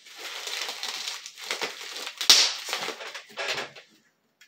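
Plastic bubble wrap being twisted and squeezed by hand, its bubbles crackling and popping in a quick string, with one sharp, loud pop a little over two seconds in.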